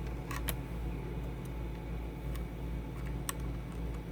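Light, sparse clicks and taps of a solid-state drive being fitted into its slot in a laptop, about five in four seconds, over a steady low hum.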